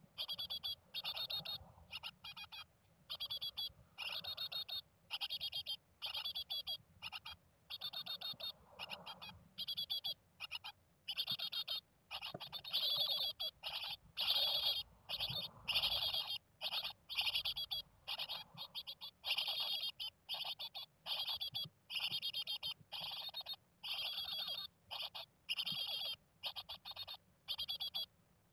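16-day-old Japanese tit nestlings calling inside the nest box: short, rapid buzzy calls repeated over and over, about one to two a second.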